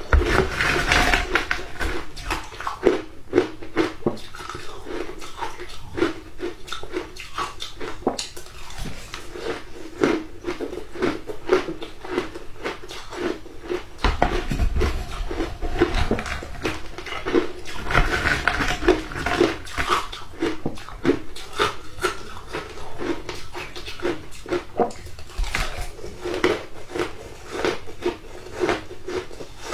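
A person biting and chewing shaved ice close to the microphone: a dense, irregular run of crunches and crackles, with busier spells near the start and around the middle.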